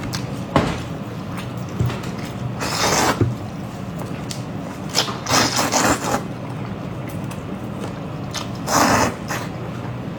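Eating noises close to the microphone: several short, noisy bursts, one about every two seconds, over a steady low hum.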